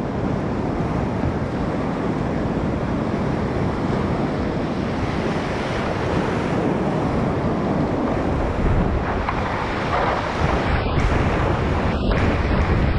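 Whitewater rapids rushing around a kayak, a steady loud wash of water with wind buffeting the microphone; about three-quarters of the way through it turns choppier, with brief dips in the highs.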